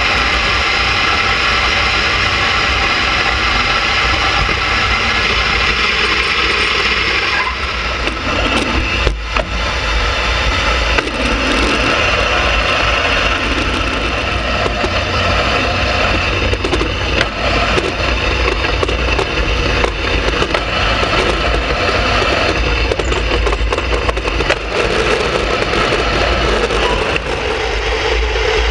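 Skimmer ice boat's runners hissing and scraping over the ice at speed, with a heavy rumble of wind buffeting the boat-mounted microphone. The sound changes abruptly about seven seconds in.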